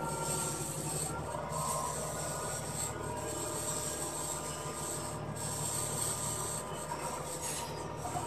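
Heavy machinery running steadily: an engine's low, fast-pulsing hum with a steady higher whine over it.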